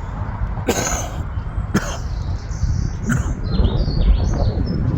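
A person coughing a couple of times close to the microphone over a steady low rumble, with faint bird-like chirps near the end.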